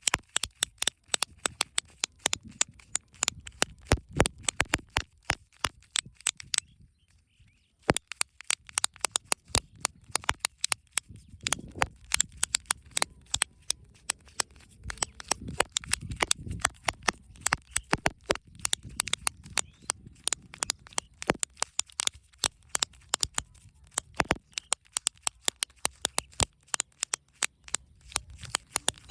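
Rapid, irregular crisp clicks and crackles of hands opening surprise eggs and handling toy and candy packaging, with a break of about a second around seven seconds in.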